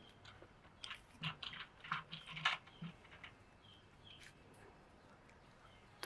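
3x3 speed cube being turned by the fingertips: a quick string of faint plastic clicks and clacks as the middle slice is pushed through M and M2 turns, stopping about halfway through.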